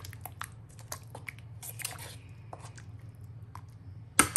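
A spoon stirring thick, cooked whole-lentil dal in a pan: soft wet squelching with light scrapes and clicks of the spoon against the pan, and a few sharper knocks near the end. A steady low hum runs underneath.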